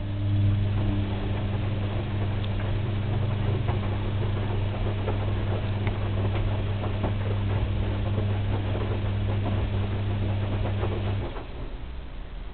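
Washing machine running a wash stroke: its motor hums steadily while the tub turns with water and laundry churning, then the motor stops abruptly about eleven seconds in.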